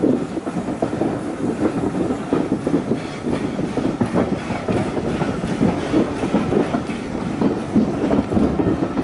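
Heritage railway carriages rolling along the track, their wheels clattering over rail joints in a steady, irregular run of clicks, heard from an open carriage window.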